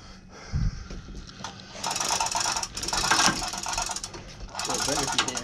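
Manual chain hoist being hauled by its hand chain: the chain rattles and the hoist clicks rapidly, in two spells of a second or two each. A dull thump comes about half a second in.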